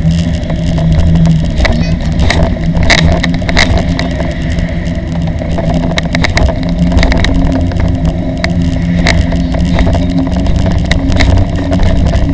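Road noise of a bicycle towing a two-seat child trailer along a street: a steady, loud low rumble from the rolling wheels, broken by frequent sharp rattles and clicks as it goes over the surface.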